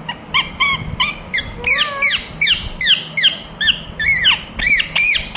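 Ringneck parrot (rose-ringed parakeet) calling: a rapid series of short, high squawks, about three a second, each falling in pitch.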